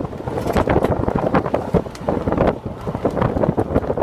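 Wind rushing through the open window of a vintage trolley car travelling fast and buffeting the microphone, mixed with dense, irregular rattling and clatter from the moving car.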